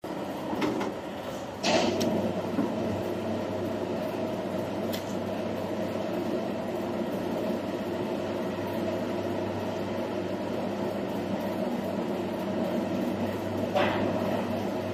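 Plastic-moulding machinery running with a steady hum. A few short knocks and clanks cut across it, the loudest about two seconds in and another near the end.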